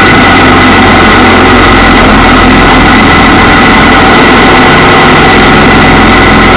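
Motorcycle engine running steadily at road speed with constant wind and road noise, picked up by a camera mounted on the bike itself; very loud.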